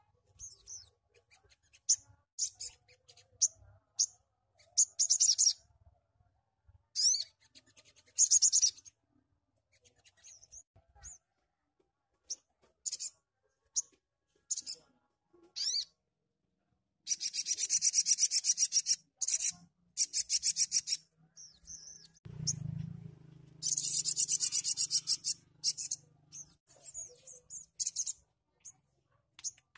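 A caged brown-throated sunbird (sogok ontong) singing in full song: bursts of very high, rapid, rattling trilled notes with short chirps between them. The longest bursts come about 17 seconds and 23 seconds in. A brief low hum sounds about 22 seconds in.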